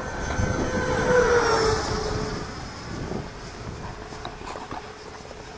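Radio-controlled model plane flying past: a steady whine that drops in pitch as it goes by, about a second and a half in, then fades away.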